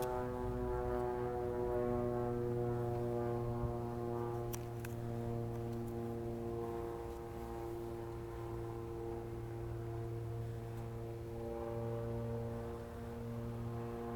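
2008 Chevrolet Suburban's V8 engine idling: a steady, even hum.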